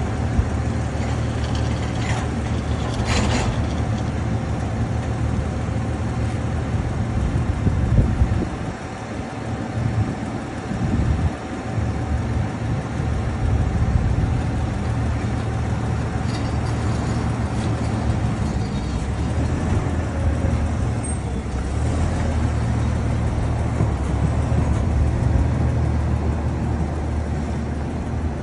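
Front-loader garbage truck's diesel engine running with a steady low hum, shifting for a few seconds midway as the truck moves forward. A few seconds in, a steel dumpster clatters as it is rolled.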